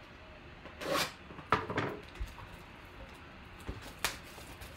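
A sealed cardboard trading-card hobby box being slit open and pulled apart by hand: two short scraping, rustling bursts in the first two seconds, then a few sharp clicks of the cardboard about four seconds in.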